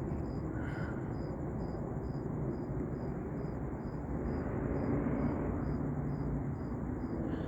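Crickets chirping steadily, about two chirps a second, over a steady low rumble whose source is unclear.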